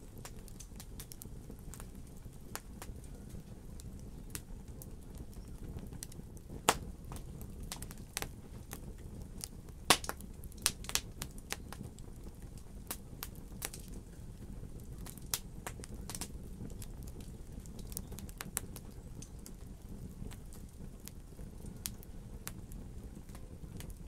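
Wood logs burning in a fireplace, crackling: a steady low rush of flame with irregular sharp pops and snaps, the loudest a little over a quarter of the way in and again near the middle.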